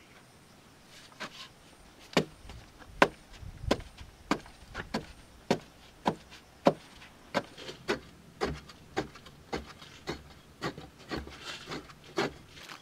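Repeated knocks of a hand digging tool chopping into hard, packed clay soil, about one or two strikes a second with scraping between them, beginning about two seconds in.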